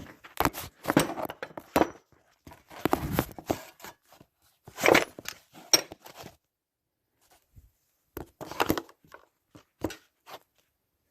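Scattered knocks and rattles of a breaker bar and socket being fitted and worked on a stripped, seized set screw, in irregular bursts with a quiet pause in the middle.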